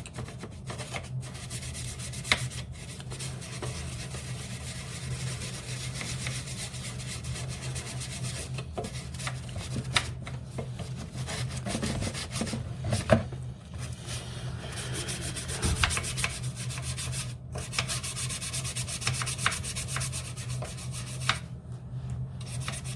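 A brush scrubbing a plastic trim panel with cleaning powder and bleach, a continuous rapid back-and-forth scratching, over a steady low hum.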